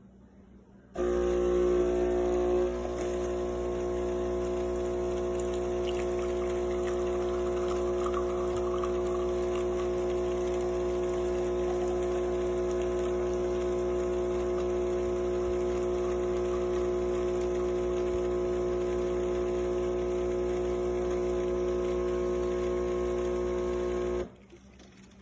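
Philips 5400 Series fully automatic espresso machine's pump running with a steady hum as it dispenses a drink. It starts abruptly about a second in, is a little louder for the first couple of seconds, and cuts off sharply near the end.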